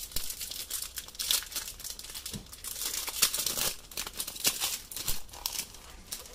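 Foil wrapper of a Pokémon trading card booster pack crinkling and tearing as it is opened by hand, a run of irregular crackles.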